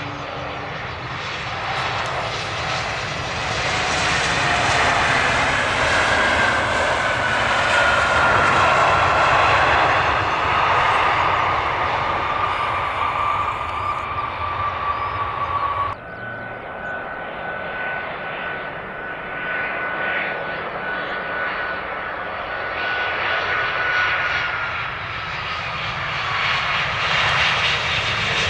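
Airbus A320neo's two CFM LEAP-1A jet engines during landing: a steady jet rush with an engine whine gliding down in pitch as the aircraft passes. About halfway in the sound cuts abruptly to a steady whine over the rush, which drops in pitch near the end.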